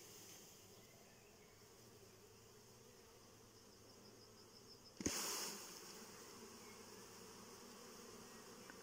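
Honeybees buzzing faintly and steadily, with a single sharp knock about five seconds in as a cluster of bees is shaken out of a plastic container onto a wooden board. The buzzing is louder after the knock.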